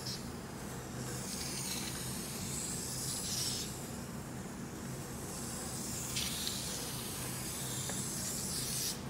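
Felt-tip marker drawing on a sheet of paper: the tip slides over the paper in long curving strokes with a scratchy hiss that swells and fades.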